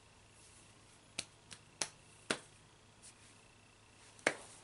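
Five sharp snaps and clicks, unevenly spaced, as hair is twisted up and fastened with an elastic hair tie. Three come close together between one and two and a half seconds in, and a strong one comes near the end.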